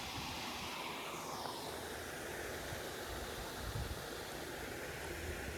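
Steady rushing of water pouring over a spillway, with a couple of low bumps a little past the middle.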